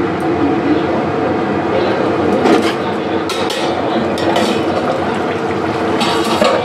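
Potato-and-pea curry simmering in a kadai on a gas burner: a steady bubbling hiss, with a few light metal clinks from the steel lid and spatula, and the lid coming off near the end.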